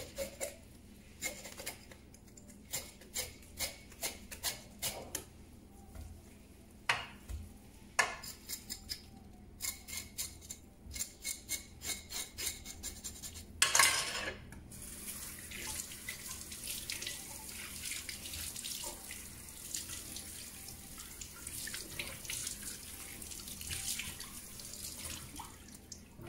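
A whole fish being scaled with short scraping strokes, about two or three a second. About halfway through, a tap comes on and water runs steadily while the fish is washed in a sink.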